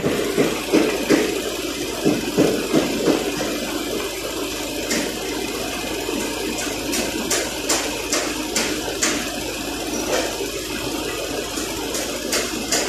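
Range Rover SVR's engine running with the air conditioning on, a steady mechanical noise, while refrigerant is being charged into the AC system. Short sharp ticks come at irregular spacing through the second half.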